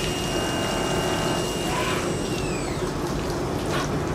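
CNC milling machine cutting a part held in a rotary-axis chuck under flood coolant: coolant splashing against the part and enclosure over a steady high whine that glides down in pitch a little past halfway through. Two short clicks, one near the middle and one near the end.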